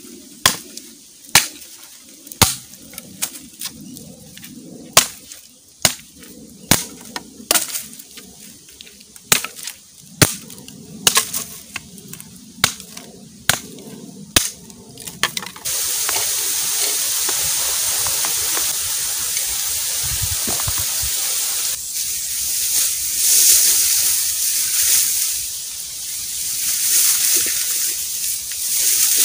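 A machete chopping at an upright bamboo pole: sharp strikes, roughly one a second. About halfway through, the chopping gives way to a steady rushing hiss.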